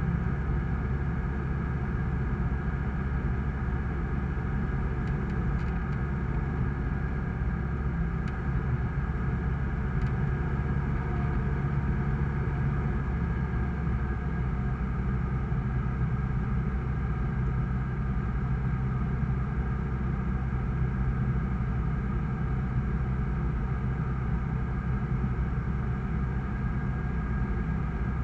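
Sling 2's Rotax 912 four-cylinder engine and propeller running steadily in flight, heard from inside the cockpit as a constant drone. Its tone shifts slightly about halfway through.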